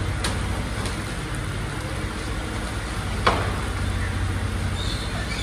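Rear-loader garbage truck's engine idling steadily under the patter of rain, with one sharp clank about three seconds in as rubbish is thrown into the hopper.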